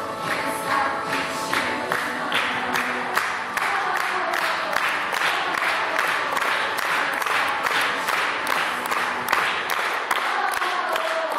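Group of people clapping in time, about two to three claps a second, with a children's choir singing underneath; the singing comes through more clearly near the end.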